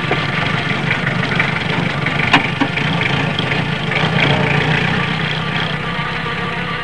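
A vehicle engine running steadily with a low rumble, with one sharp click a little over two seconds in.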